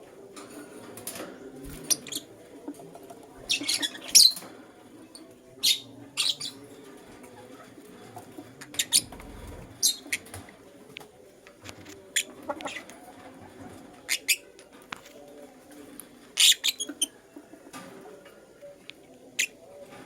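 Young lutino lovebirds chirping: short, sharp, high calls come at irregular intervals, a few of them in quick clusters. The loudest are about four seconds in and near the end. A low steady hum runs underneath.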